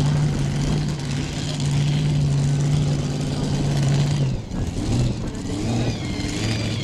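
Modified pulling tractor's engine idling with a steady low drone; about four seconds in the drone drops away and a lower, unsteady idle carries on.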